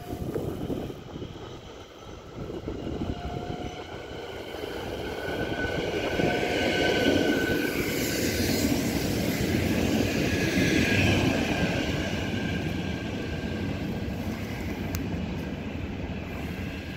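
NS Sprinter Nieuwe Generatie (SNG) electric multiple unit departing and passing close by. A rising whine sits over the rumble of wheels on rail, loudest in the middle as the train goes past, then fading as it pulls away.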